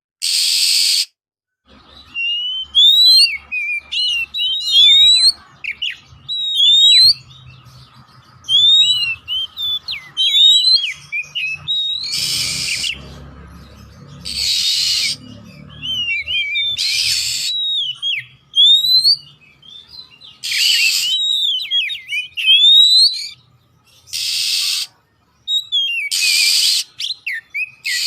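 Oriental magpie-robin (kacer poci) singing a fast, varied song of whistled notes that rise and fall, broken every few seconds by harsh rasping bursts about a second long.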